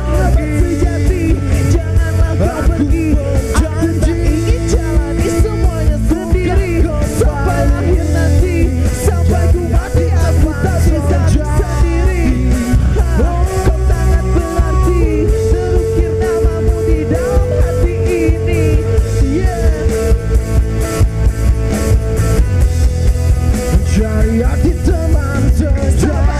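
Live rock band playing an instrumental break: an electric guitar plays a lead line of held and bending notes over drums and bass.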